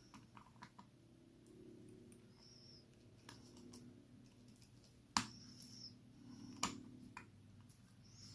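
Faint, sparse small clicks and taps from handling a watch and its parts during reassembly, a second or more apart, the sharpest about five seconds in.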